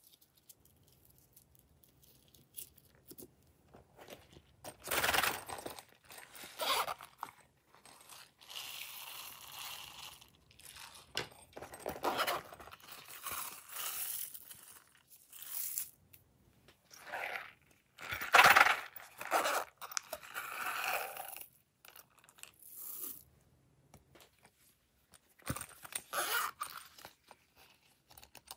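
Hands squeezing and kneading glossy slime, pressing it against silicone toys: irregular bursts of sticky squishing, starting about four seconds in.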